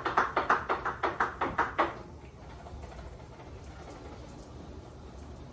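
Hand trigger spray bottle of vinegar and dish-soap window-cleaning solution squirted rapidly, about six squirts a second, stopping about two seconds in.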